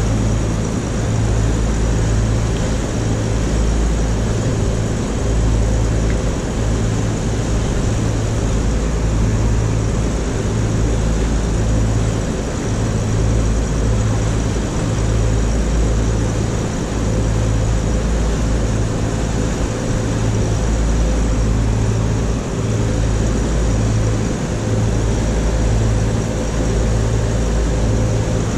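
A motor yacht's engines running steadily while it cruises: a loud low drone with a slow, regular throb, under a steady rush of wind and water.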